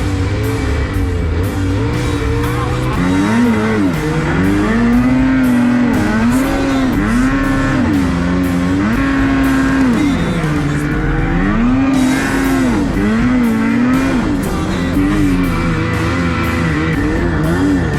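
Ski-Doo Renegade XRS 850's two-stroke engine revving up and down over and over as the throttle is worked, with rock music playing over it.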